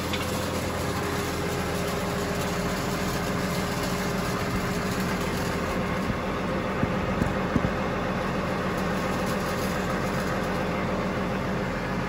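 Combine harvester's diesel engine idling with a steady, even hum. A few light taps come about seven seconds in.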